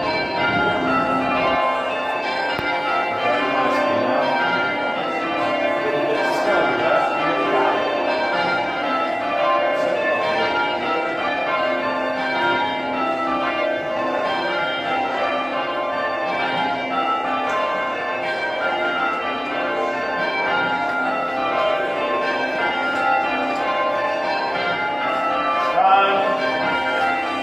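Church bells rung full circle in rounds: each bell strikes in turn, highest to lowest, over and over in a steady, even sequence, the ringing tones overlapping.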